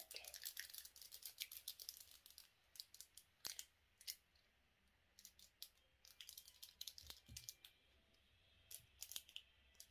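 Wacky Track fidget toy's plastic links clicking as they are twisted, a quick run of small clicks at first, then scattered clicks and a few more near the end.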